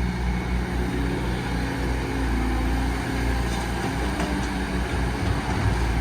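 Diesel engine of a Caterpillar 315D L hydraulic excavator running steadily while it works loading a dump truck.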